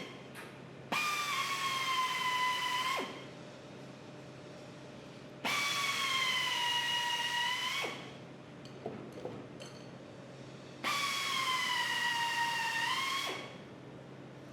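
Power drill run in three bursts of about two seconds each, its whine sagging slightly under load and rising again just before each stop. A few faint clicks come between the second and third bursts.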